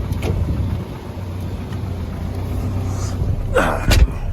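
Chevrolet S10's 2.5-litre Iron Duke four-cylinder engine idling steadily, only a few minutes after a cold start. Near the end there is a short sound falling in pitch, then a thump.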